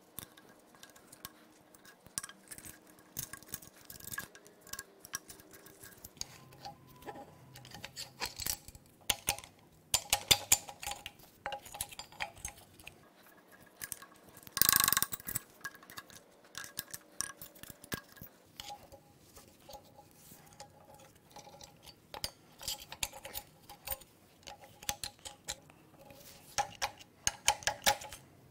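Metal hand tools and engine main bearing caps clinking and clanking as the main caps are pried loose and lifted off a Ford 5.4 3-valve V8 block, with one louder half-second rattle about halfway through.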